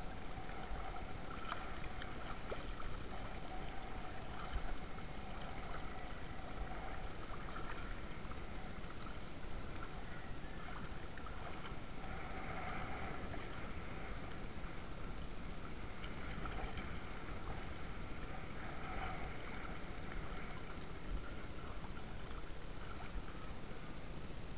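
Steady sloshing and rushing of water as a fishing gill net is handled and lifted through the water by hand.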